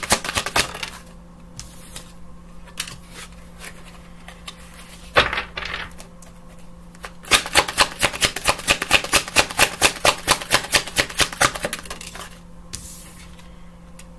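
A tarot deck being shuffled by hand: fast runs of clicking card edges, one in the first second and a longer one of about four seconds in the middle, with a single louder knock about five seconds in.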